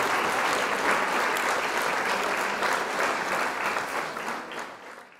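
Audience applauding with dense clapping, fading out near the end.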